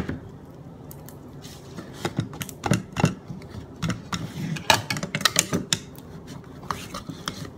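Plastic spoon stirring slime in a ceramic bowl, knocking and scraping against the bowl in a scattered run of clicks. A sharp knock comes right at the start.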